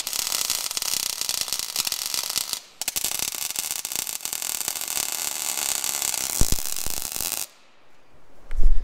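Electric arc welder crackling on steel as a crack in a tillage implement's frame is tack-welded: one run of about three seconds, a brief break, then a longer run of about four and a half seconds that stops suddenly. A low thump near the end.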